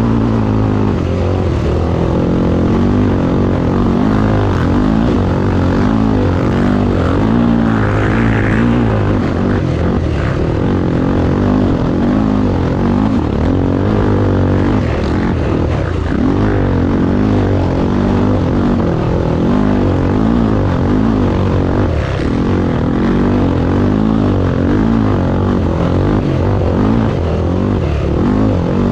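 Honda Tornado motorcycle's single-cylinder engine running hard without a break, its revs rising and falling in quick waves.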